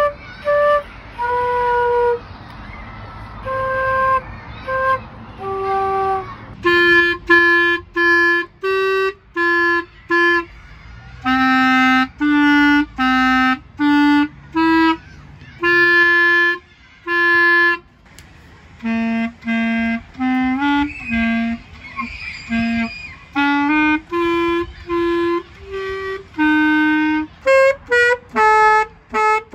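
Solo woodwinds playing one tune in turn, note by note with short gaps between notes. A flute plays the first few seconds, a clarinet takes over from about seven seconds in, and an alto saxophone comes in near the end.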